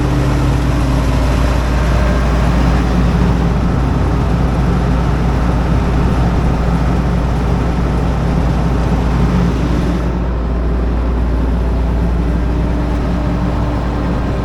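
A large engine running steadily with a low hum, its pitch holding even; the hiss above it softens about ten seconds in.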